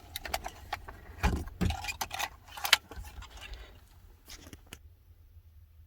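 A run of small clicks and rattles as the replacement rear AC temperature control unit is handled and fitted into place, dying away about five seconds in.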